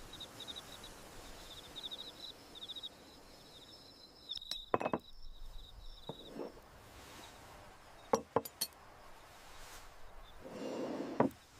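Crickets trilling steadily, with a few sharp clinks and knocks: one about halfway in, a quick cluster of three a little later, and one more near the end.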